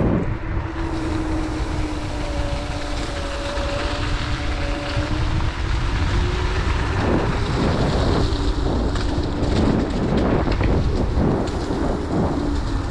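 Kaabo Wolf King GT electric scooter being ridden: wind buffets the microphone in a steady, heavy rush, under a steady whine from the hub motors that shifts slightly in pitch. From about seven seconds in, short knocks and rattles come through as it rolls over the bumpy, leaf-covered path.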